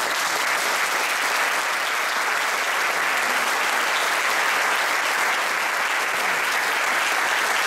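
Audience applauding, a steady, even clapping.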